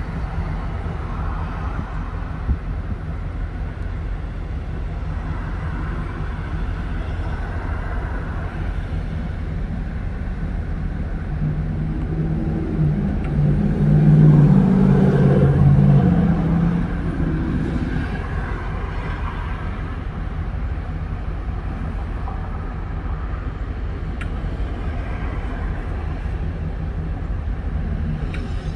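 Street traffic: a steady low rumble of engines and tyres, with one vehicle passing louder about halfway through, swelling and then fading.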